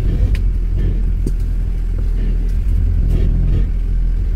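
Jeep Wrangler Rubicon's engine running low and steady as the vehicle crawls slowly over rocks, heard from inside the cab, with a few short clicks and knocks.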